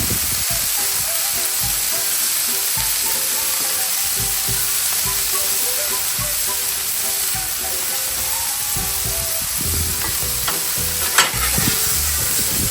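Ground beef patties searing on a flat-top griddle, a steady frying sizzle as they brown to a crust. A brief sharp knock sounds near the end.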